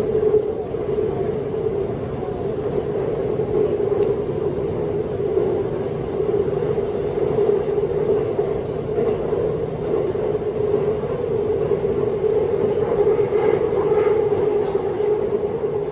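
Seoul Subway Line 2 electric train running at speed, heard inside the passenger car: a steady rumble with a droning hum.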